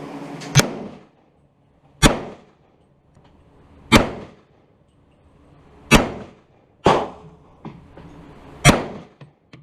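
Six rifle shots fired one at a time at a steady pace, mostly about two seconds apart with one quicker pair, each a sharp crack with a short echo trailing off.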